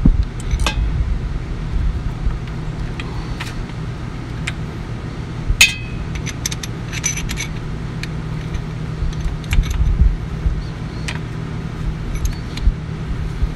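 Scattered metallic clinks and taps as a bolt and loose parts knock against the rocker arms and valve bridges of an open Detroit Diesel 6V92 cylinder head, worked by hand. The sharpest clink rings briefly about halfway through and is followed by a quick run of small clinks. A steady low hum runs underneath.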